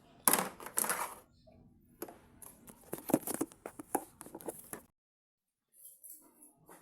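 Two short loud noisy bursts, then a run of irregular clicks and knocks, with a brief cut to dead silence near the end.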